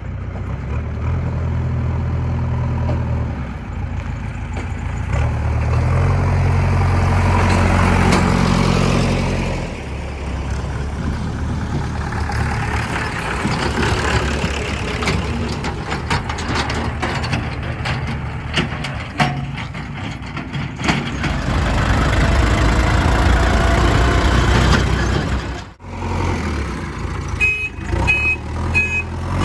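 Diesel engines of a JCB 3DX backhoe loader and farm tractors running under load, the engine note rising and falling as the machines work. A short series of high beeps sounds near the end.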